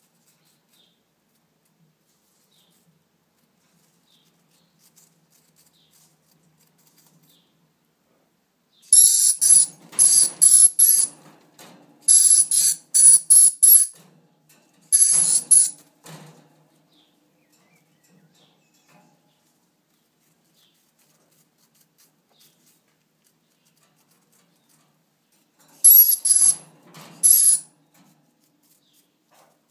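Dusky lory giving shrill, piercing screeches: a run of about eight short ones about a third of the way in, then two more near the end.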